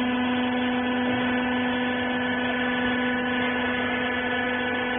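Hydraulic rag baler's electric motor and pump running with a steady hum and a strong constant tone.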